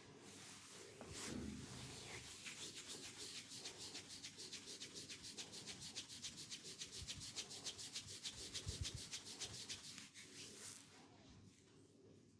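A masseur's hands rubbing quickly and rhythmically in a massage, several strokes a second, dying away near the end.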